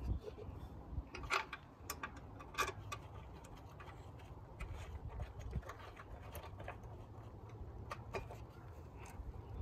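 Scattered sharp clicks and light knocks, spaced a second or more apart: a ratchet with an 8mm socket snugging the mounting bolts of a coolant filter bracket on the radiator support.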